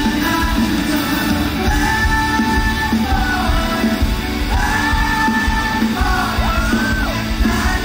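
Live rock band playing, with a male voice singing long held notes into a microphone over electric bass and drums, heard through a hall PA.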